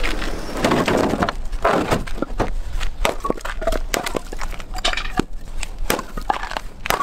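A loaded wheelbarrow rolls briefly near the start, then comes a run of sharp knocks, a few a second, as an axe strikes and splits firewood logs and the split pieces clatter.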